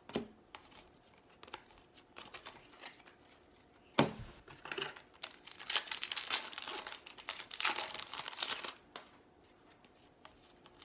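Foil wrapper of a Topps baseball card pack being torn open and crinkled, a dense crackly rustle from about five and a half to nearly nine seconds in. Before it come a few light clicks of cards being handled, and a sharp tap about four seconds in.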